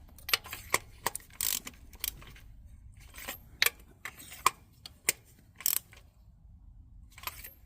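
Hand ratchet clicking in short, irregular runs with light metal tool handling, as spark plugs are run down and snugged with a little tug before torquing.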